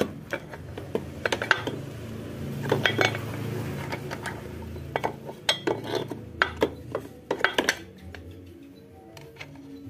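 Small steel parts clinking and tapping: the axle nut, washer and spacer collar of a scooter's rear wheel being handled and fitted onto the axle, in an irregular run of sharp clinks.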